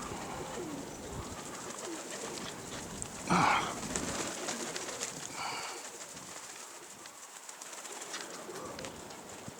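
Domestic pigeons cooing, with one louder call about three and a half seconds in and a fainter one near the middle, over wind rumbling on the microphone.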